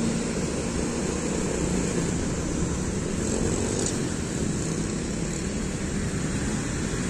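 Street traffic: engines and tyres of passing cars, motorbikes and a coach, with a steady engine drone underneath.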